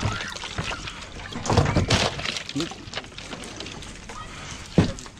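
Water sloshing and splashing in a plastic fish crate as a fish is pulled out by hand, loudest about one and a half to two seconds in. There is a single sharp thump near the end.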